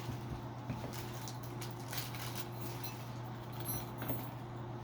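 Light scattered clicks and taps of small metal parts being handled, as an aluminum GoPro cage case is taken apart.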